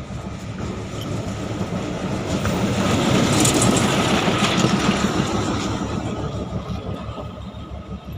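Darjeeling toy train running on its narrow-gauge track, wheels clattering over the rails, growing louder to a peak about midway and then fading.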